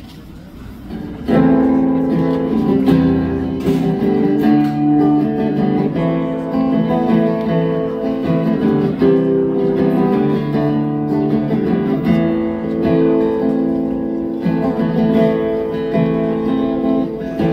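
Solo acoustic guitar strumming chords in a song's instrumental intro, coming in strongly about a second in.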